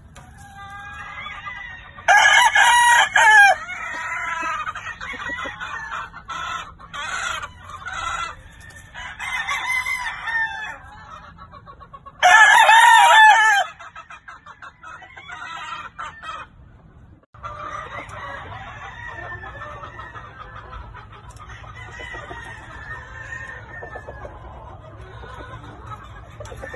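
Gamecocks crowing: two loud crows, about two seconds in and again around twelve seconds, with clucks and shorter calls between them. In the later part, quieter clucking and chatter carry on steadily.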